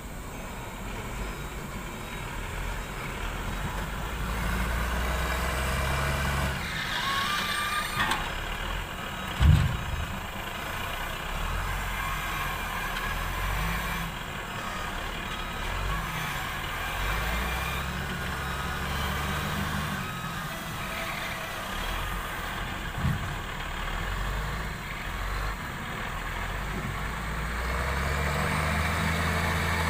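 Heavy diesel engine of a wheel-loader log stacker running and being worked, its pitch rising and falling with throttle. Two sharp heavy thumps stand out, the louder one about nine and a half seconds in and another about 23 seconds in.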